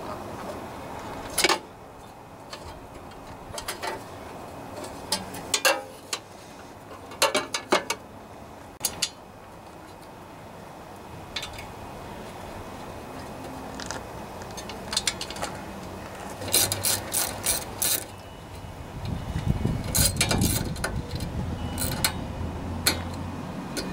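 Plastic air cleaner backing plate being fitted onto a Briggs & Stratton twin-cylinder engine and its screws driven in with a hand tool: scattered knocks and clicks of plastic and metal parts, then runs of quick clicking in the last third along with a low rumble of handling.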